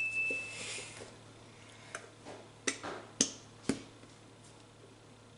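Plastic glue bottle being squeezed and tapped to empty it: a short squeak and hiss near the start, then four or five sharp clicks over about two seconds.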